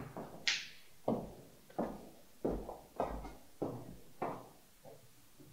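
Footsteps on a hard floor, a step about every two-thirds of a second, slowly growing fainter as they walk away, with a brief hiss about half a second in.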